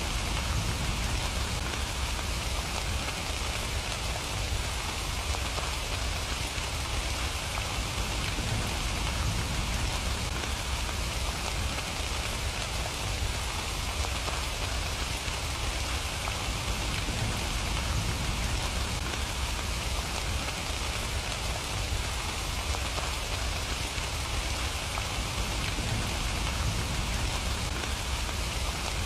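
Steady rain falling on surfaces, a dense even patter without break or change.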